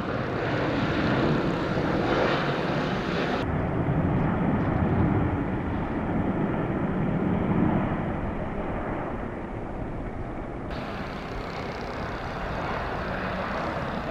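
Boeing 777-200ER's Rolls-Royce jet engines running as the airliner lands, a loud steady rushing noise that eases a little after touchdown, about two-thirds of the way in.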